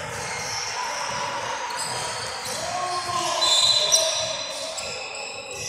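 A basketball being dribbled on a hardwood gym floor, echoing in the large hall, with voices in the background. Short high squeaks stand out about three to four seconds in, the loudest moment.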